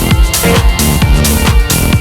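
Techno track playing, with a steady four-on-the-floor kick drum about twice a second under synth and percussion layers.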